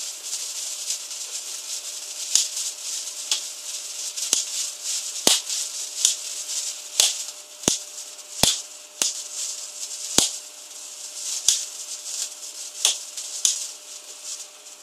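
Wire sparklers fizzing with a steady high hiss and irregular sharp crackling pops, dying away near the end as they burn down.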